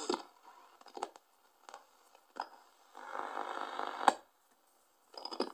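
National R-305B portable radio being tuned by hand. Brief snatches of station sound and static come from its speaker, broken by quiet gaps. A longer burst ends in a sharp click about four seconds in.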